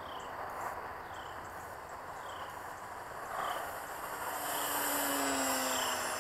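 Electric motor and propeller of a Night Walrus RC plane whining as it flies by; the hum grows louder from about four seconds in and drops slightly in pitch near the end. A short falling chirp about once a second runs underneath.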